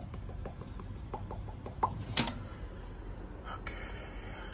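Faint clicks and taps of hands and a handheld phone moving over sheet-metal equipment, with two sharper knocks about two seconds in, over a steady low hum.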